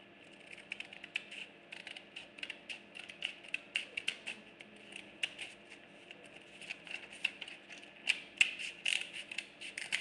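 Sheet of paper being handled and creased close to the microphone: a dense run of irregular light crackles and clicks, busier near the end.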